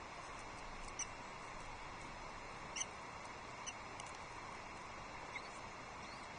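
Short, high-pitched osprey chirps, about five scattered through, over a steady background hiss.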